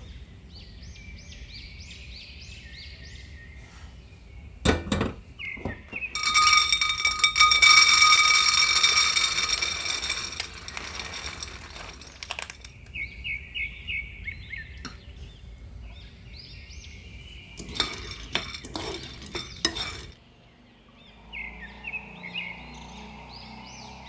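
A metal frying pan knocks down onto the gas-stove grate, then a few seconds of rattling as pine nuts fall into it, with the pan ringing; later, light clicks of a wooden spatula stirring the nuts in the pan. Birds chirp throughout.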